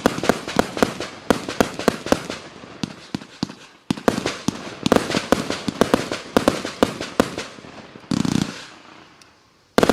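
A 100-shot consumer fireworks battery of 20 mm tubes firing in quick succession, several sharp reports a second with crackling bursts. The shots die away about eight and a half seconds in, and a sudden loud rushing burst starts right at the end.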